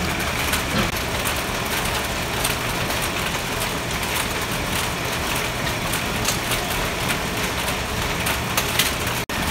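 Apple washing and sorting conveyor line running: a steady mechanical hum and hiss with light, irregular clicking.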